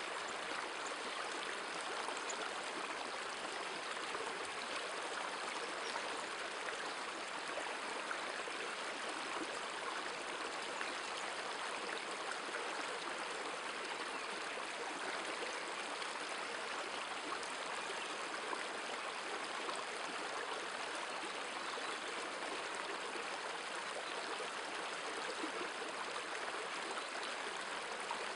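River water running steadily over rocky rapids and riffles.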